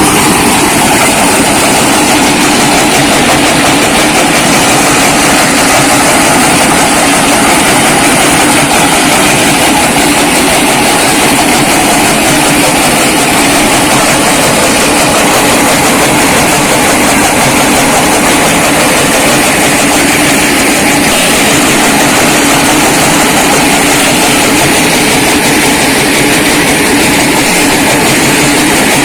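Brick-breaking machine running loud and steady, a dense mechanical din with a steady hum underneath and no let-up.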